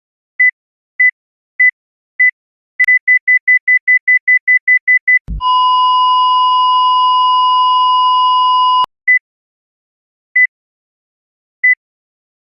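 Cardiac monitor sound effect: steady heartbeat beeps speed up into a rapid run of about five a second, typical of ventricular tachycardia. A short low thump like a defibrillator paddle shock is followed by a continuous flatline tone of asystole for about three and a half seconds, then slow single beeps return.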